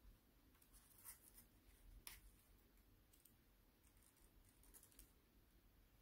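Faint crinkles and scrapes of a sheet of paper being folded and creased by hand, with a sharper crackle about two seconds in.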